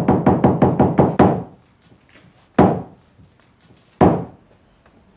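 Wooden staff struck on a stage floor: a fast run of knocks, then two slow, evenly spaced heavy knocks. This is the French theatre's traditional 'trois coups', signalling that the curtain is about to rise.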